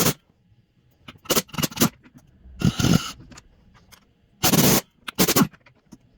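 A series of about seven hard, irregularly spaced hammer blows on a steel bearing driver, seating a new steering stem bearing race into a dirt bike's frame head tube.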